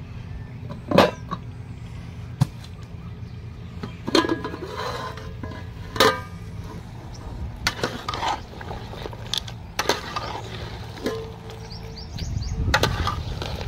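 An aluminium cooking pot's lid and a steel ladle clinking and knocking against the pot in a string of sharp, irregular metallic strikes, some with a short ring, as the pot is uncovered and stirred. A steady low hum runs underneath.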